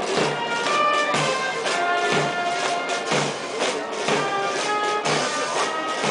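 Brass band playing a march: held brass notes over a bass drum beating steadily about once a second, with lighter drum strokes in between.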